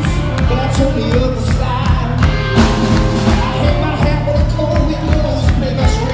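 Rock band playing live, with a steady drum beat under guitar and melody lines.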